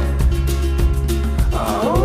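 Background song with a steady beat and bass; a singing voice comes in near the end.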